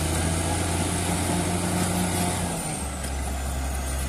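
Caterpillar D6G crawler dozer's diesel engine running steadily under load as it pushes soil with its blade, the engine note dropping a little about three seconds in.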